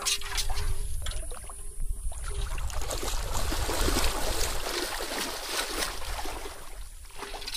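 Legs wading fast through shallow pond water, a continuous splashing and sloshing that builds about two seconds in and eases near the end.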